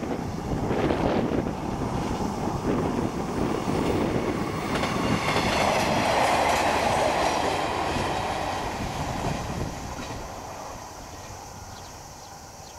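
A train running past on a curve of the San'in Line, its wheels clattering over the rails, with a high ringing squeal from the wheels on the curve around the middle. The sound then fades away as the train moves off.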